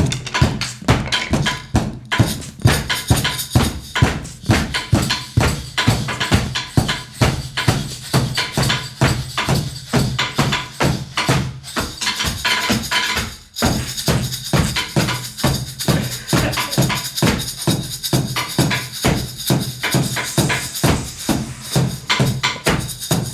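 Live improvised percussion jam, noisy and rhythmic: fast, even hits over a steady low bass, with a brief drop about thirteen seconds in.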